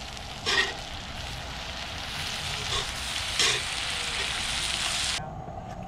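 Meat sizzling as it sears over high heat, its fat rendering, with a couple of brief louder spits. The sizzle cuts off abruptly about five seconds in.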